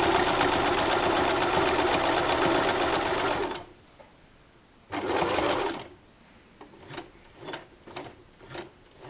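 Electric sewing machine topstitching through terry cloth and cotton: a steady run of about three and a half seconds, a stop, then a second short run of under a second. A few light clicks follow near the end.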